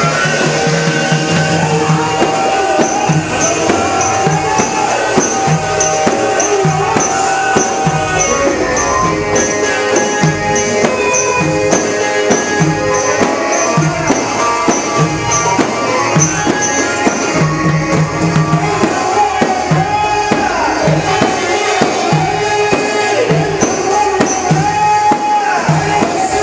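Egyptian shaabi party band playing an instrumental passage between the sung lines of a mawwal. A steady, fast beat on tambourine and drums runs under a melody line that bends in pitch.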